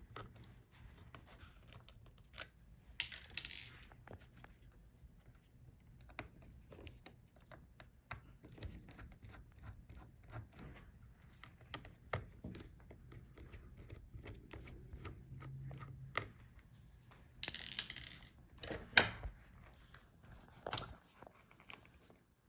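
Small clicks and taps of a T5 Torx screwdriver and small metal parts against a laptop's chassis while screws are undone, with two brief scratchy rustles, about three seconds in and again near the end.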